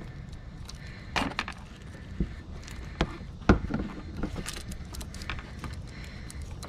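Irregular metallic clinks and knocks of a hand tool and fittings as the cold air intake filter is tightened into place, a handful of sharp clicks a second or so apart.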